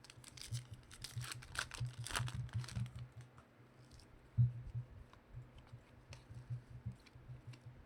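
Trading cards and their paper or foil packaging being handled: a run of crinkles and sharp little clicks, busiest in the first three seconds and sparser after, over a steady low hum.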